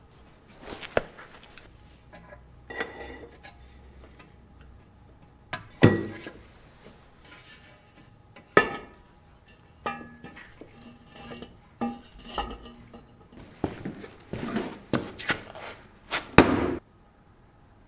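Hand tools clanking and knocking against metal parts while a stuck CV axle is being worked free. The clanks come at uneven intervals, some of them ringing, with a few sharp strikes and a short rattling clatter near the end.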